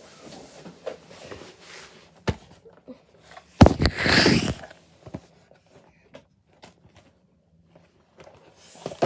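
Handling noise: scattered small knocks and rustles, then a sharp knock about three and a half seconds in followed by about a second of loud rustling as the camera is moved.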